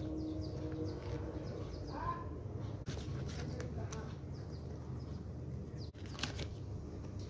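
Paper pages of a ring-binder diary being turned by hand, rustling and flapping, with a few sharp page-flip snaps over a steady low background hum.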